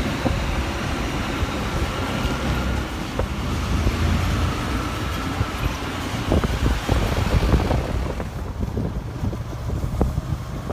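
Road traffic going past: steady engine rumble and tyre noise, the higher hiss easing off about eight seconds in.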